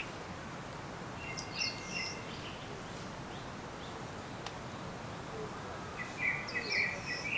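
Small songbirds singing in a forest: two bursts of quick, high chirping phrases, one a little over a second in and one near the end, over a steady background hiss.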